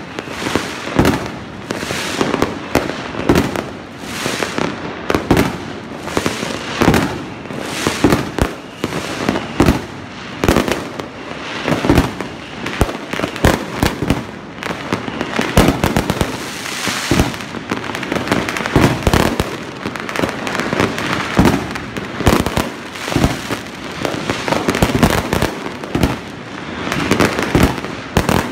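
Fireworks going off in a dense, unbroken series of bangs, with aerial shells bursting and crackling overhead.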